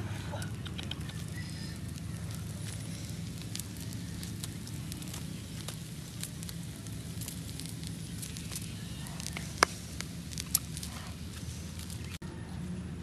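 Charcoal fire crackling under fish grilling on stick skewers, with scattered small ticks and two sharp clicks about nine and a half and ten and a half seconds in, over a steady low hum.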